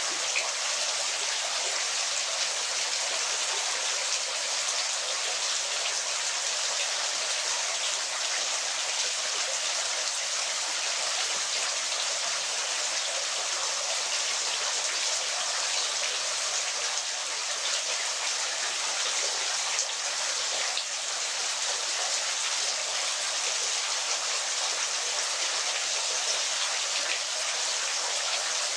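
Waterfall water falling steadily: an even, unbroken rushing hiss, bright with little low rumble.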